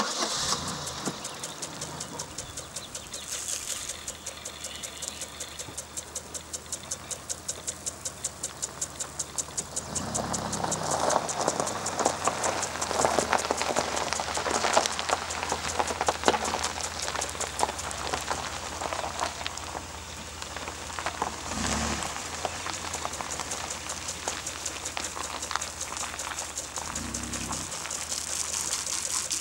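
Rotating lawn sprinkler spraying water, the spray pattering down on the grass and on a minivan standing in its path, with rhythmic ticking. The spray grows louder about a third of the way in, over a car engine running low underneath.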